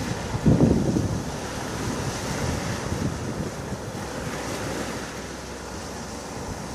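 Sea waves washing on the shore with wind blowing across the microphone, and a louder low rush about half a second in.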